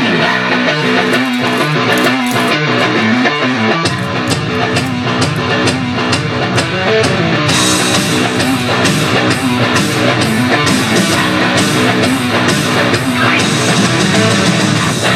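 A loud guitar-led rock song starts suddenly. The low end fills in about four seconds in.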